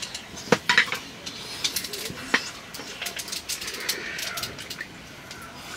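Eating utensils clinking and knocking against dishes, a few sharp knocks followed by many light ticks.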